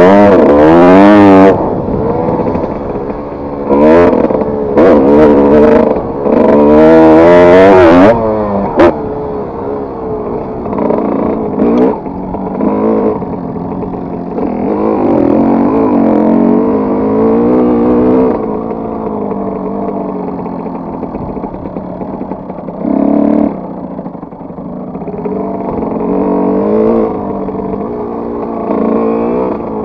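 Kawasaki KX125's single-cylinder two-stroke engine revving up and falling off again and again as the motocross bike is ridden on a dirt track. Loud full-throttle pulls come in the first eight seconds, then it runs at lower, more even revs with one short burst of throttle near the end.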